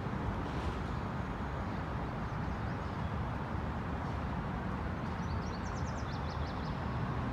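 Steady low outdoor rumble of distant road traffic, with a short run of high chirps about five seconds in.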